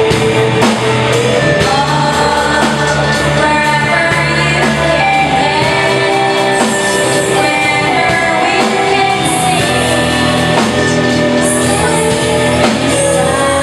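A rock band playing a song live: a voice singing sustained notes over electric guitar, bass and drums with cymbals.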